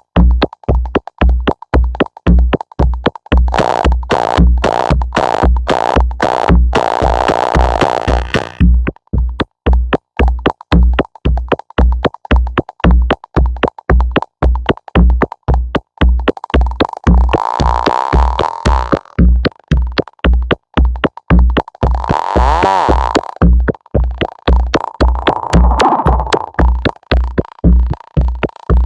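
Electronic music from a Moog synthesizer: a steady kick drum about twice a second under a fast run of synth notes, with filtered swells rising and falling over it several times.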